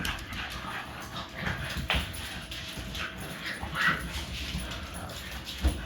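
French bulldog puppy whimpering in short bits, with two sharp knocks, one about two seconds in and one near the end.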